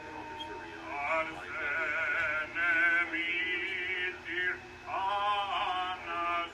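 Background music: a solo voice singing a wavering melody with heavy vibrato over a steady low drone note, coming in about a second in and briefly pausing near the end.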